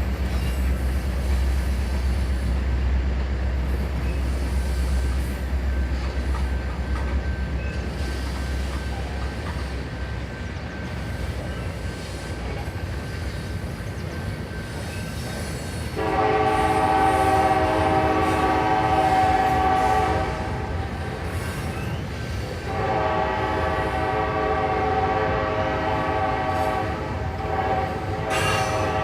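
Canadian National diesel freight locomotive air horn sounding two long blasts of a steady multi-note chord. The first starts a little past halfway and lasts about four seconds. The second starts about three seconds later and is still sounding at the end. Before the horn, a heavy low diesel rumble fades over the first several seconds under the noise of the moving train.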